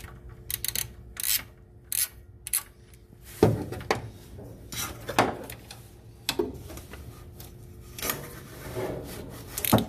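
Hand socket ratchet turning out a bolt on the generator's mounting bracket: short irregular runs of ratchet clicking and metal scraping, with a few louder metal knocks. The bolt comes loose easily, not tight.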